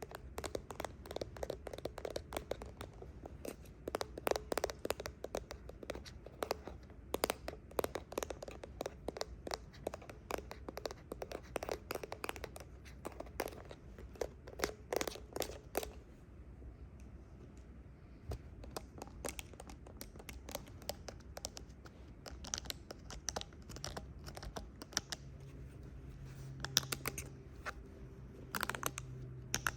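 Close-up fingernail scratching and tapping on hand-held plastic devices. It is dense and rapid for the first half, then turns into sparser, sharper taps.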